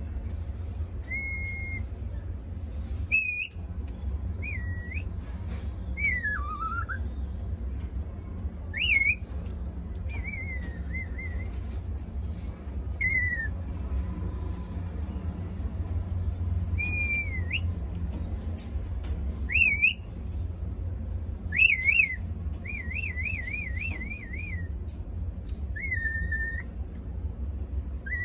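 Cockatiel whistling: a string of short whistles, some held level and some sliding up or down, with a quick wavering trill about two-thirds of the way through. A steady low hum runs underneath.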